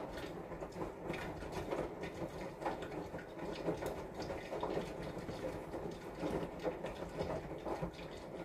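Flat metal spatula spreading and scraping fresh whipped-cream frosting over a layered cake and in the bowl: soft, irregular scraping and light tapping.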